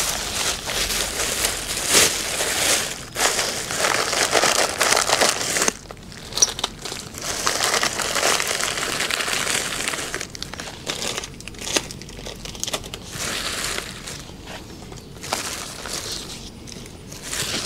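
Plastic bags being crinkled and rustled on and off, with short pauses between bouts of handling.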